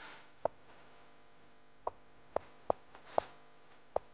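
Short, sharp click sounds as moves are played in a fast online chess game, six at irregular intervals over about three and a half seconds, over a faint steady hum.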